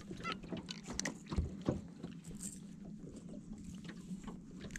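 Quiet scattered clicks and taps of rod, line and tackle being handled on a bass boat deck as a striped bass is swung aboard, over a low steady hum.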